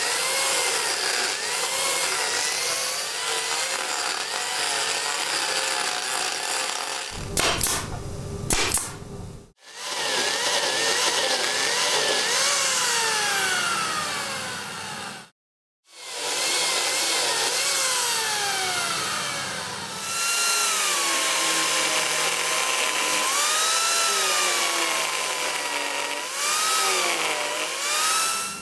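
Angle grinder carving wood with Arbortech discs, first the TurboPlane shaping a flat face and then the Mini Turbo cutting mortises and a tenon. The motor's whine dips and recovers as the cutter bites and eases off, and the sound breaks off briefly twice.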